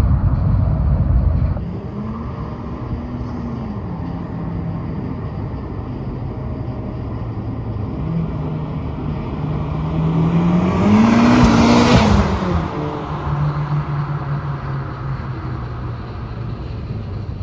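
A 2019 Honda Civic Type R's turbocharged four-cylinder, fitted with a PRL high-flow intake, driving past: the engine note climbs and swells to its loudest about eleven or twelve seconds in as the car goes by, then drops back to a steady hum. A loud low rumble fills the first second or so.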